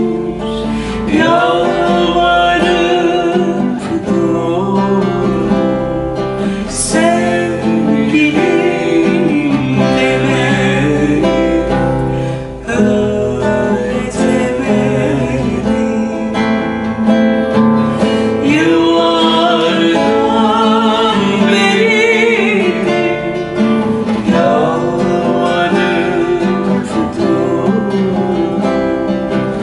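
Acoustic duet music: nylon-string classical guitar accompaniment with a wavering, vibrato melody line above it, playing a slow Turkish song.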